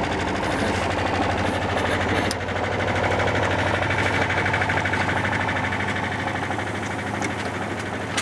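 A sailboat's engine running steadily while motoring, a constant low drone with a steady hum underneath.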